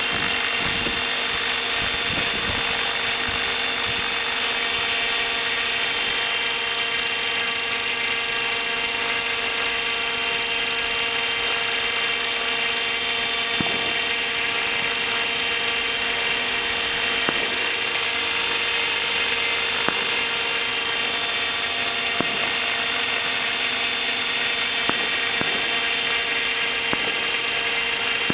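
Thunder Tiger Raptor E720 electric RC helicopter, in a scale Black Shark fuselage, hovering low: a steady high whine from its motor and gears over the rush of the main rotor.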